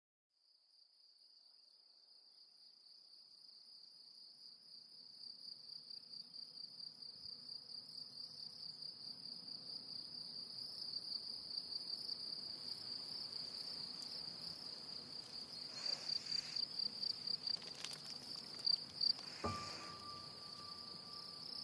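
Crickets chirping in a steady, pulsing high trill, fading in from silence over the first several seconds and growing louder. Near the end a single ringing musical note comes in and holds under them.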